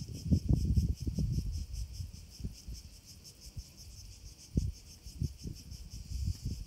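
Insects chirring steadily in a fast, evenly pulsing trill. Low thumps and rumbles sound over it, loudest in the first second or so and again about four and a half seconds in.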